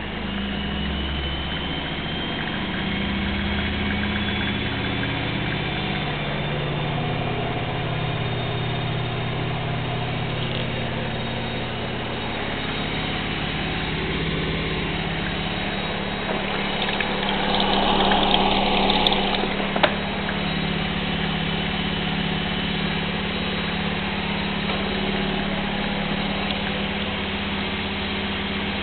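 Gorenje washing machine drum spinning up in its spin cycle (extra spin, 1100 rpm). The motor whine rises over the first few seconds, then holds as a steady high-speed hum. A little past halfway there is a brief louder rushing swell, then a single sharp click.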